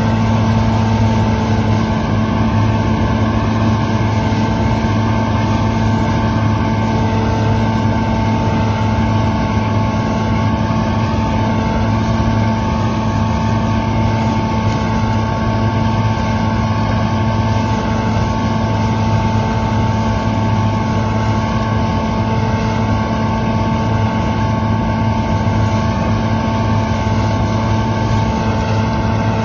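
Claas Lexion combine harvester running steadily while harvesting soybeans: a constant engine and machinery drone with a steady hum that does not change.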